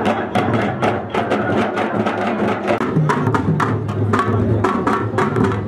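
Fast rhythmic percussion: sharp strokes about four or five a second over a deeper drum.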